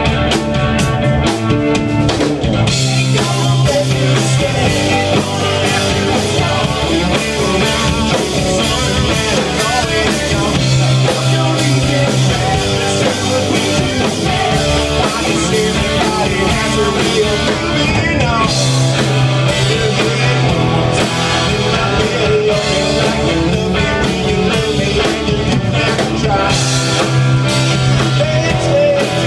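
Live rock band playing loud and steady: electric bass, electric guitar and drum kit.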